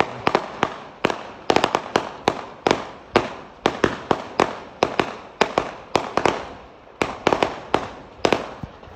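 Fireworks exploding in rapid, irregular succession: sharp bangs, several close together in clusters, each trailing off in a short echo.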